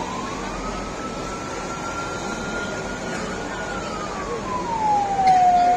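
Emergency vehicle siren in a slow wail: the pitch climbs, holds high for a few seconds, then falls and starts to climb again near the end, loudest at its low point.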